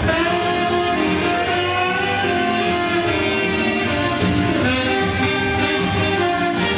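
Dance music with guitar.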